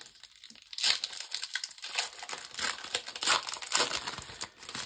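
Foil wrapper of a Pokémon TCG booster pack crinkling and tearing as it is opened by hand, a run of irregular crackles starting about a second in.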